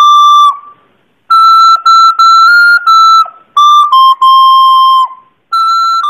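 Recorder playing a melody: a held note breaks off, and after a short pause comes a run of short notes, then a few longer ones, and a final note that is held on.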